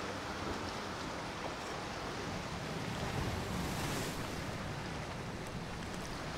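Steady rush of waves and wind on the microphone, with a low hum underneath that swells briefly about three to four seconds in.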